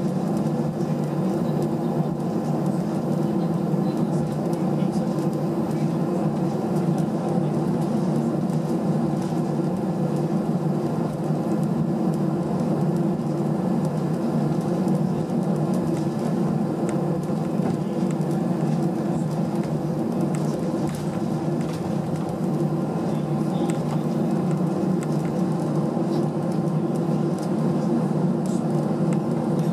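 Steady cabin noise inside an Airbus A319 airliner taxiing: the engines at low taxi power and the cabin air system giving an even, low drone with a faint hum in it.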